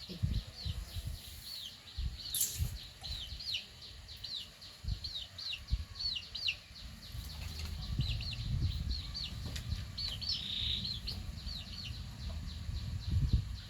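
A small bird chirping over and over, short high hooked notes about two a second, over irregular low thumps and rumble.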